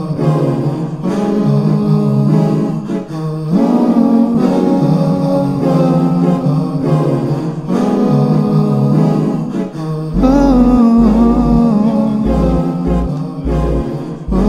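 Layered vocal harmonies sung and looped live through a sampler, the phrase repeating about every four seconds; deep bass notes come in about two-thirds of the way through.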